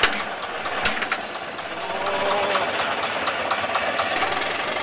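Caterpillar crawler tractor's diesel engine running with a fast, steady clatter, with two sharp clanks in the first second.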